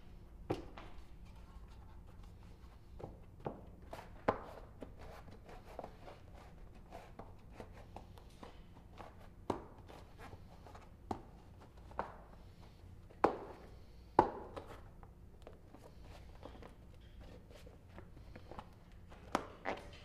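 Scattered clinks and knocks of tools and bike parts being handled during a mountain bike build, about a dozen at irregular intervals, the two loudest a little past halfway ringing briefly, over a faint steady hum.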